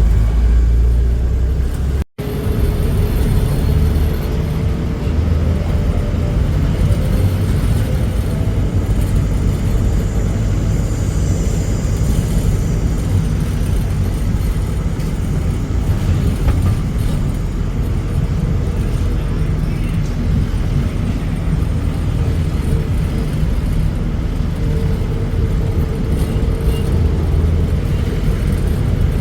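Engine and road noise heard from the open bench seat in the back of a moving songthaew pickup-truck taxi: a steady, loud low rumble that drops out for an instant about two seconds in.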